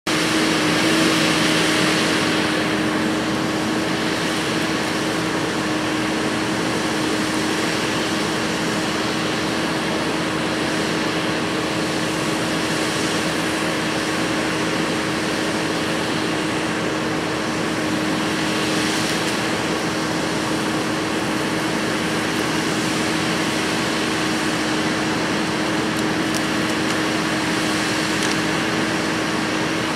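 Kubota SVL compact track loader running steadily at working throttle as it clears dry brush with a front-mounted brush-cutting head, a steady machine drone with a constant hum.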